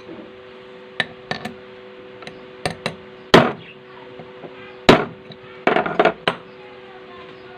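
Sharp knocks and taps of tools on the metal parts of a Singer edger sewing machine being reassembled, a dozen or so scattered strikes with two loud ones about halfway through and a quick cluster near the end, over a steady low hum.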